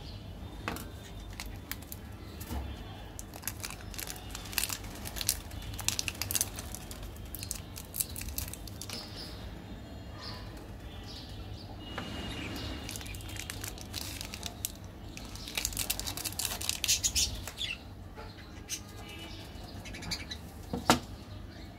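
Irregular crackling, clicking and rustling as hands handle sweets, with the loudest patch late on and a sharp click near the end. Faint bird chirps come and go in the background.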